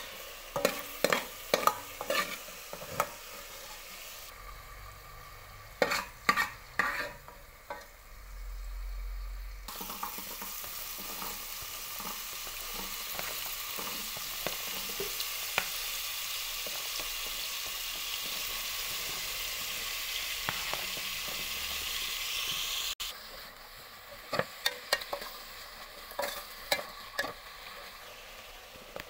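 A metal ladle scrapes and knocks against a metal pot while pork stir-fries, in a few quick runs of strokes. A steady sizzle of hot oil follows for about thirteen seconds as sliced carrots and radish go into the pot. Near the end come more scraping strokes as the vegetables are stirred.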